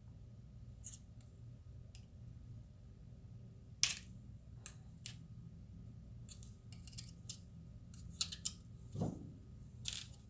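Scattered sharp clicks and clinks of small metal diesel injector parts being handled and pried apart on a workbench. The clicks come more often in the second half, with the loudest near the end and a short falling sound just before it.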